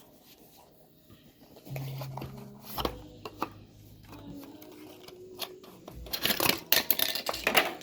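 A Hot Wheels blister pack being opened by hand: plastic and cardboard crackling and tearing, with scattered clicks. It builds to a loud, dense burst of crinkling near the end.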